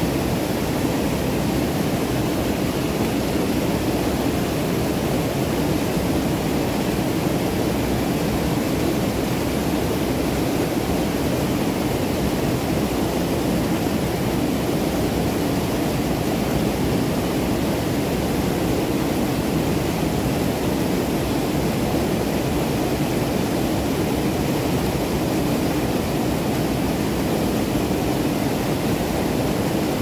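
Waterfall: steady, unbroken rushing water, with no change in level.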